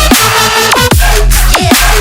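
Loud electronic dance music with a heavy bass line and repeated beats that drop in pitch.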